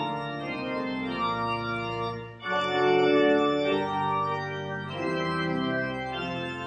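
Church organ playing a slow succession of held chords, with a short break about two and a half seconds in before a louder chord.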